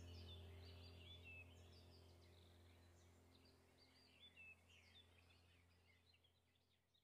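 Faint bird chirps over a low steady hum, the whole fading gradually down to near silence.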